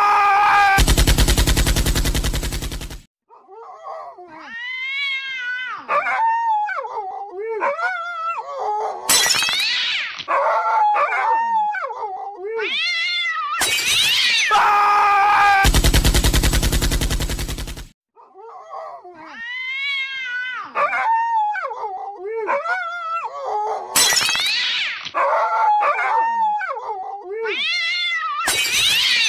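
Animal yowling and howling: drawn-out, wavering calls that slide up and down in pitch, in a sequence that repeats about every 15 seconds. The calls are broken twice by a loud burst of noise.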